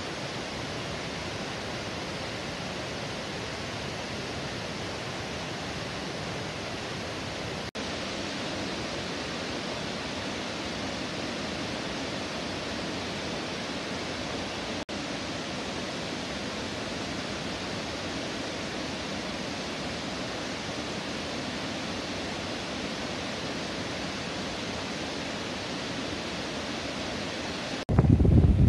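Steady rush of a rain-swollen waterfall, muddy floodwater cascading down rocks into a flooded river. Near the end a sudden, much louder buffeting rumble cuts in: wind on the microphone with a truck passing close.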